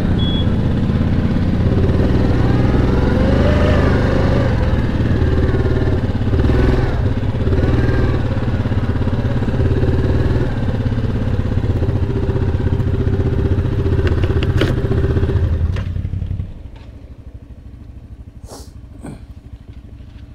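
Yamaha Kodiak 700 ATV's single-cylinder engine running under way, its pitch rising and falling with the throttle. About sixteen seconds in the engine sound drops away suddenly, leaving a much quieter background with a few faint clicks.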